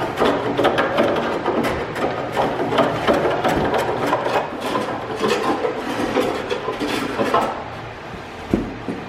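Wooden parts scraping, rubbing and knocking in a dense, uneven run of small knocks that eases off near the end.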